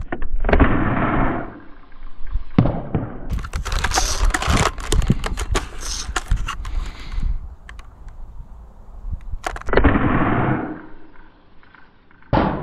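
ZWQ S100 spring-powered Nerf sniper blaster firing twice, about nine seconds apart, each shot a short burst of air. Between the shots comes a stretch of clicking and clatter as the blaster is primed and reloaded.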